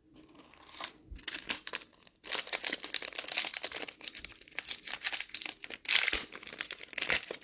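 Wrapper of a Fleer Ultra Midnight Sons trading card pack being torn open and crinkled: a dense run of crackles starting about a second in and growing busier from about two seconds in.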